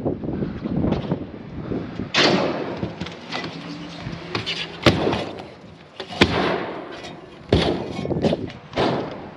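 Irregular sharp knocks and clattering, scraping bangs from work on standing seam metal roofing panels, with two crisp metallic hits about five and six seconds in.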